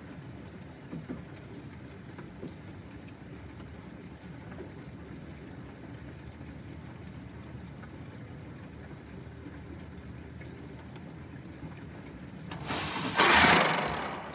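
Steady rain falling in a thunderstorm, a hissing wash with small scattered drip ticks. Near the end a loud rushing swell rises and falls away over about a second and a half.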